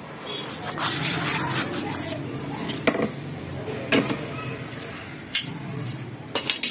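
A metal bar scraping and rubbing against a scrap car radiator as it is pried apart, then a handful of sharp metallic clinks from about three seconds in.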